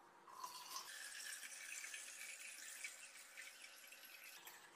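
Faint, steady pour of hot water from a stainless steel kettle into the neck of a rubber hot water bottle. It starts about a third of a second in and stops shortly before the end.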